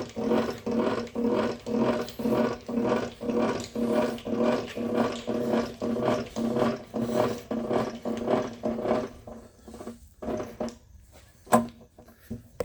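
Zocca 500 metal shaper's stroke mechanism being cranked by hand down to minimum stroke: a rhythmic rubbing grind about twice a second, with no clunk now that the binding slipper block has been fixed. The cranking stops after about nine seconds, and a couple of sharp clicks follow.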